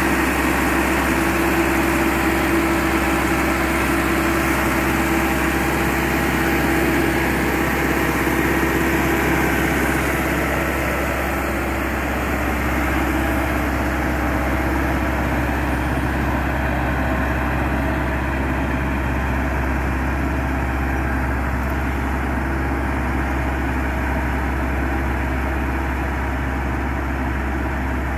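Massey Ferguson 385 tractor's four-cylinder diesel engine running steadily under load while pulling a disc harrow through the soil, growing slightly fainter about halfway through as it moves away.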